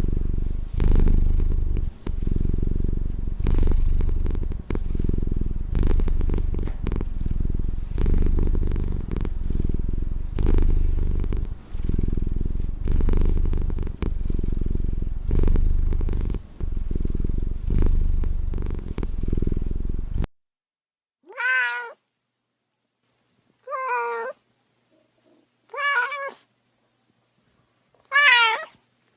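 Domestic cat purring close to the microphone, the purr swelling and fading with each breath, for about twenty seconds. The purr then cuts off and four separate meows follow, a couple of seconds apart.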